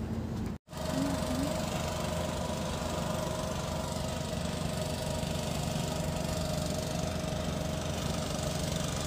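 A houseboat's engine running steadily with a low hum. The sound cuts out for a moment about half a second in, then the same steady running resumes.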